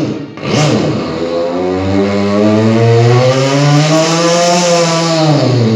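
A man imitating a motorbike engine with his voice into a microphone. Two short sputters near the start, then one long rev whose pitch climbs slowly and drops away near the end.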